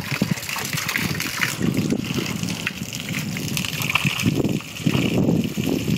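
Water gushing and splashing onto muddy ground and into a shallow puddle where young Labrador puppies are wading, coming in uneven surges.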